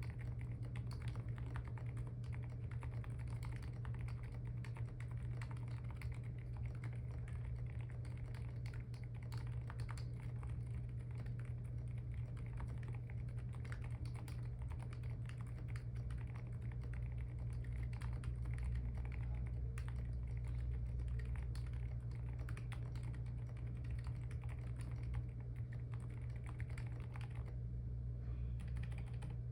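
Custom gasket-mounted Neo Ergo keyboard with a POM plate, KSA keycaps and HMX Silent Sakura silent linear switches being typed on in steady, continuous keystrokes. About halfway through it moves on to repeated presses of the large stabilized keys (lubed and tuned Neo stabilizers). A steady low hum runs underneath.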